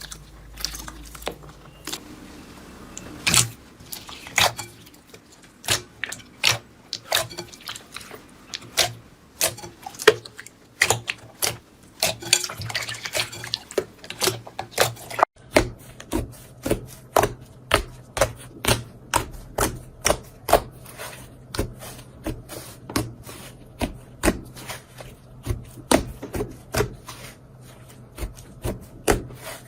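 Slime being squeezed and stretched by hand, giving a string of sharp wet pops and clicks, about two a second in the second half. A low steady hum runs under the second half.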